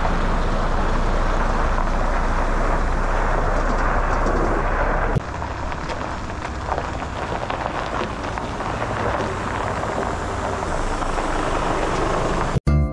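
Truck running with a steady, loud noise; its deepest rumble drops away about five seconds in, and the sound cuts off abruptly near the end.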